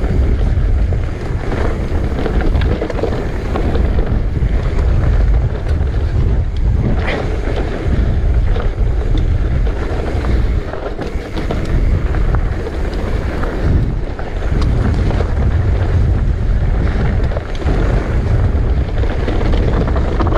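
Wind buffeting a GoPro's microphone during an e-mountain-bike ride, a loud steady rumble with scattered knocks and rattles from the rough trail.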